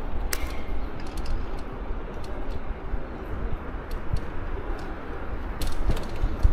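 Bicycle rolling over stone paving: a steady low rumble with scattered rattling clicks, and a cluster of clicks near the end as it rides onto cobblestones.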